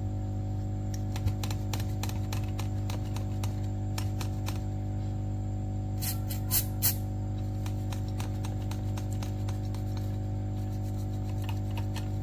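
A few short hisses of Falcon 530 cleaner spray just past halfway, with light scratchy ticks of a cloth wiping a remote's circuit board around them, over a steady electrical hum.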